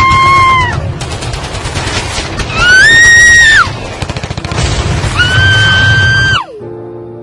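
Sound-effect track of rapid gunfire rattling under three long, high screams, each held and then falling in pitch at its end. The gunfire and the last scream cut off together about six seconds in, leaving music.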